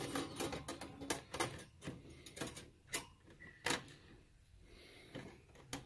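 Scattered sharp metal clicks and clinks, about half a dozen, as a stainless steel grill grate and its wire lifting tool are handled and the grate is set down onto a UCO Flat Pack portable grill.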